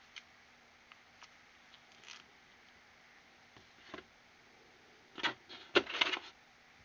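Handling noises in a hard plastic carrying case: a few light clicks, then a cluster of louder knocks and rattles near the end as the cartridge punch is lifted out of its moulded slot.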